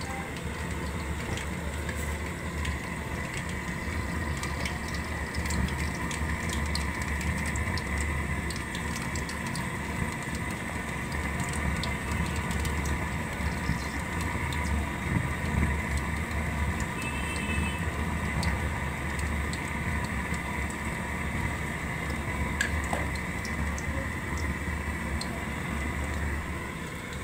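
Pakora batter deep-frying in hot ghee in an iron karahi: a steady sizzle with scattered small pops and crackles, over a low steady rumble.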